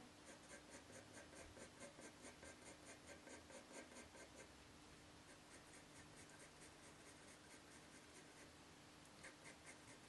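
Faint scratching of a pencil hatching on paper, in rapid even strokes of about five a second. The strokes thin out after about four seconds and pick up again near the end.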